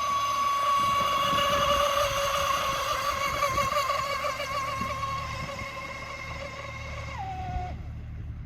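3D-printed RC raceboat running at speed: a steady high-pitched motor whine that slowly gets quieter. About seven seconds in, the pitch drops sharply and the whine cuts off.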